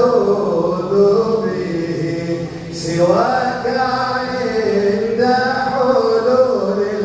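A man chanting a devotional Arabic qasida into a microphone, in long drawn-out notes that waver and turn around each pitch. He breaks off briefly about two and a half seconds in, then starts the next phrase.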